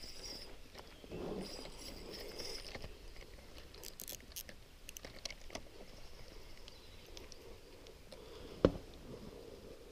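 Spinning reel being cranked on a bent rod while a hooked fish is played, with clicking, rattling and rustling handling noise and a short high buzz twice near the start. One sharp, loud knock about nine seconds in.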